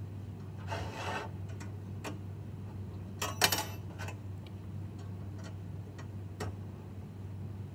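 Hex driver turning small screws against nuts on a VEX metal frame, with a light scraping about a second in, a louder clatter of metal parts about three and a half seconds in, and scattered small clicks.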